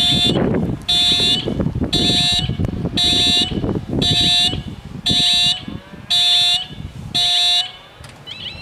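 Railway level crossing warning bells ringing, about one stroke a second, eight strokes in all, stopping near the end.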